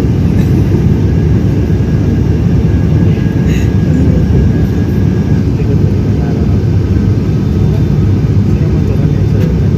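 Airliner cabin noise heard from inside the passenger cabin: a loud, steady low rumble of engines and airflow as the plane descends to land in strong wind.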